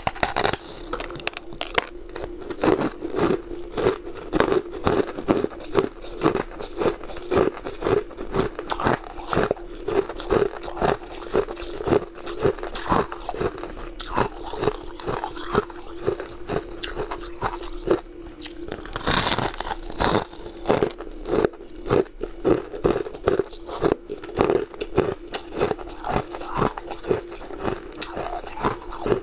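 Close-up crunching and biting of crumbly white frozen ice, bite after bite at about two crunches a second, with a steady hum underneath.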